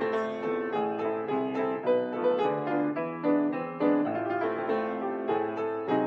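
Grand piano playing a pasodoble, a steady run of struck notes and chords.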